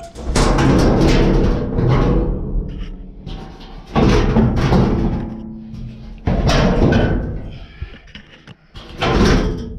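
A large sheet-steel floor pan panel being manoeuvred into a car's floor: the thin metal bangs and flexes with a booming, wobbling ring, in several loud bursts a few seconds apart.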